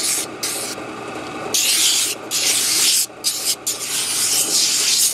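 Belt-driven drum sander with a 60-grit sleeve, a wooden workpiece pressed against the spinning drum in short repeated passes to shape its edges. Each contact gives a loud abrasive hiss that stops and starts several times, over the steady running of the motor and drum between passes.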